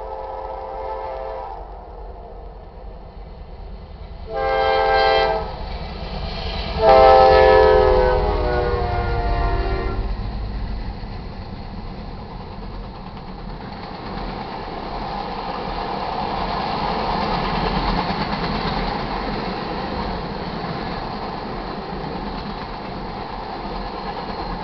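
Air horn of the lead locomotive, CSXT 7885, a GE C40-8W, sounding for a grade crossing: the tail of a long blast, a short blast about four seconds in, then a final long blast whose pitch drops at its end as the locomotive passes. The train then rolls through the crossing as a steady mix of diesel engine and wheel-on-rail noise that swells around the middle.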